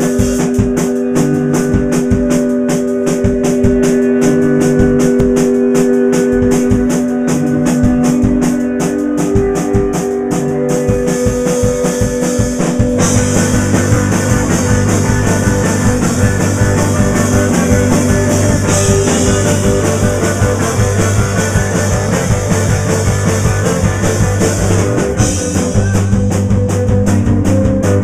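A rock band playing live and loud on drums and distorted electric guitar with bass. The drums keep a fast, even beat under held guitar notes, and about halfway through cymbals and a heavy low bass line come in fuller.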